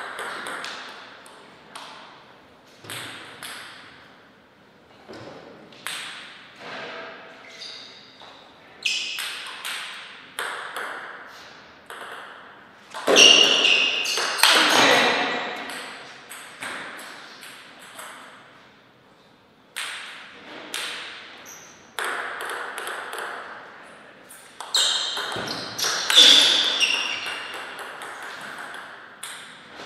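Table tennis rallies: a plastic ball clicking off rubber-covered paddles and the table in quick exchanges, with pauses between points. A loud shout comes around halfway and again near the end, as points are won.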